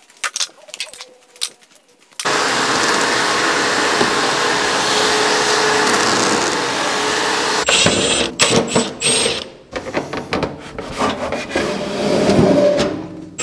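A steady, loud mechanical noise with a faint hum in it starts about two seconds in and stops abruptly after about five seconds. It is followed by irregular knocks and clatter as the cart's wooden panels are handled and pulled loose.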